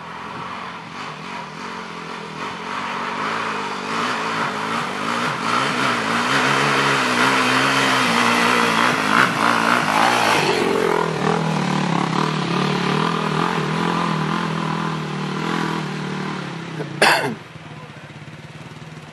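Off-road motorcycle and quad bike engines revving as they climb a steep dirt hill, growing louder until a sport quad passes close about halfway through. The engine then runs on more steadily, a sharp crack sounds near the end, and the engines drop to a quieter, more distant running.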